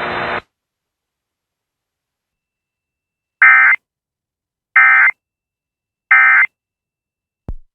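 Emergency Alert System end-of-message data tones: three short, identical bursts of digital squawk about 1.3 seconds apart, signalling the end of the alert. Before them a radio hiss cuts off about half a second in, and a short blip comes just before the end.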